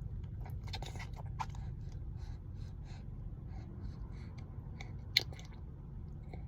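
A baby's small mouth sounds, soft wet smacks and clicks as it mouths and gums, with one sharper click about five seconds in, over a steady low rumble.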